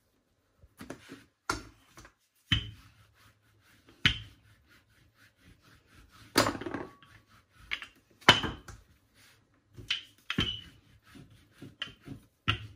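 Wooden rolling pin rolling out a puff pastry sheet on a wooden chopping board: a string of wooden knocks every second or two, with rubbing in between.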